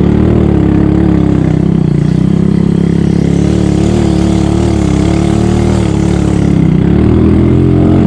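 Motorcycle engine running under load as the bike climbs a mountain path, its note rising and falling with the throttle.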